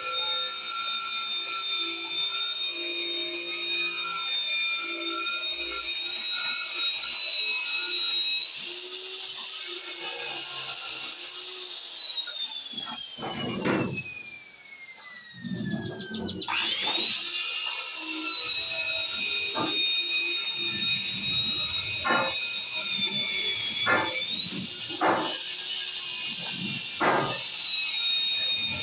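Angle grinder with a wire wheel brush whining at full speed. About twelve seconds in it winds down as it coasts after being switched off, then it is switched back on and spins straight back up. After that come short, separate scrubbing strokes as the wire wheel is worked against a rusty steel pipe.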